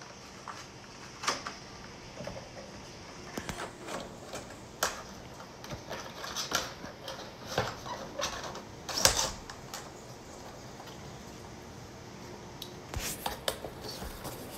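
Clear plastic packaging insert and cardboard box of a Funko Pop vinyl figure being handled, giving irregular small clicks and crinkles, loudest about nine seconds in.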